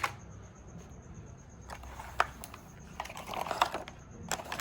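Light clicks and clatter of small plastic toys being handled, with a short run of rattling about three seconds in.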